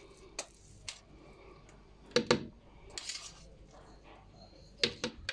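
A few separate clinks and knocks of kitchen utensils and dishes being handled, with quiet gaps between them. The loudest come a little over two seconds in and again near the end.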